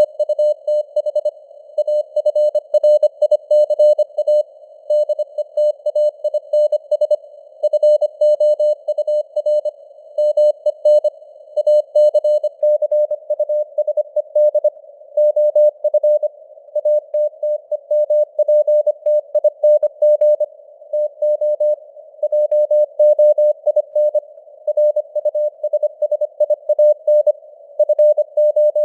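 Morse code (CW) at 25 words per minute: a single mid-pitched tone keyed on and off in short dots and longer dashes, spelling out text. Under the tone runs a narrow hiss of simulated radio noise.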